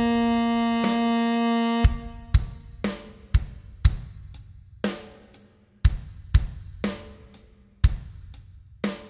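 Tenor saxophone holding one long note for about two seconds over a drum-kit backing track. The sax then stops and the drums carry on alone, with kick, snare and hi-hat hits about twice a second.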